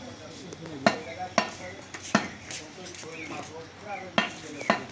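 Butcher's knife striking a wooden chopping block while cutting beef: several sharp knocks, irregularly spaced, a pair of them close together near the end.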